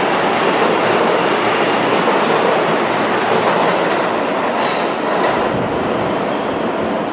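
R143 subway cars running along the track, a steady loud rumble of steel wheels on rail with faint clicking over rail joints, easing slightly in the last couple of seconds.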